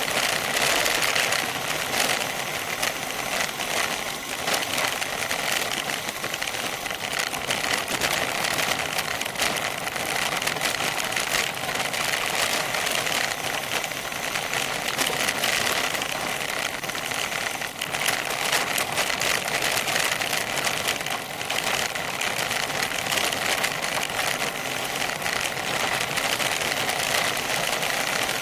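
Bicycle rolling fast down a loose gravel road: a continuous crunch and rattle of tyres over gravel, with a dense stream of small clicks and a steady buzz from the bike and its seat-post camera mount.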